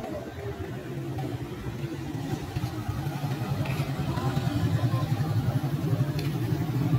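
Motorcycle engine running as it passes along the road, growing louder from about two seconds in.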